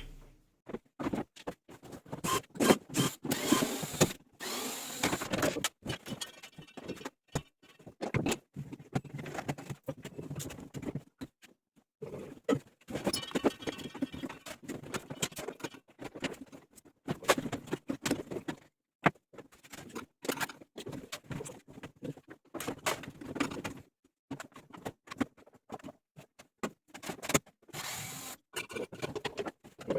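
Washing machine being taken apart with tools: irregular clicks, knocks and clatter of screws, tools and casing panels, with a couple of longer stretches of denser rattling.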